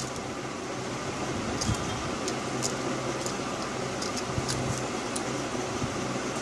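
Steady background hum and hiss, with a few faint light clicks and taps as the Samsung G530H's motherboard is pressed and seated into the phone's frame.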